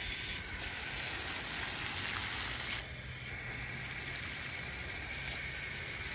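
Water spraying from a garden hose nozzle and pattering onto the potting soil and leaves of plants in plastic pots, a steady hiss that drops a little about three seconds in.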